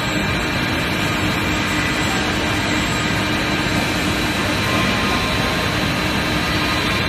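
Steady, loud running noise of forging-line machinery: a constant hum with several fixed whining tones and no distinct blows or impacts.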